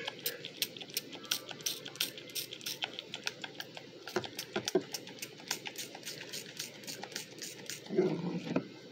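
Fast, even clicking, about four clicks a second, from the metal top of a small glass perfume bottle being twisted and worked by hand. Near the end a louder, duller handling noise.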